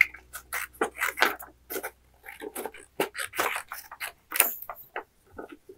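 Paper being handled: short, irregular rustling and scraping strokes, thinning out near the end.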